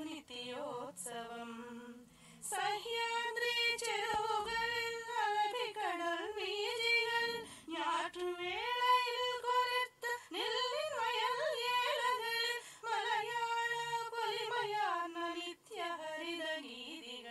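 A woman singing unaccompanied, holding long notes that bend and waver in pitch, with short pauses between phrases.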